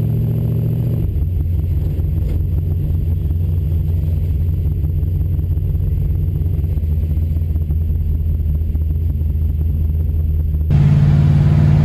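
Small-block Chevy V8 of a 1971 El Camino Super Sport running steadily at cruise, its note dropping a little about a second in. Near the end the sound changes abruptly to a louder, higher engine note.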